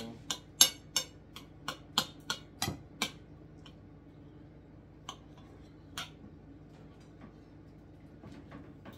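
Knife and fork clinking and scraping against a china plate while cutting food: a quick run of about ten sharp clinks in the first three seconds, then a few scattered ones.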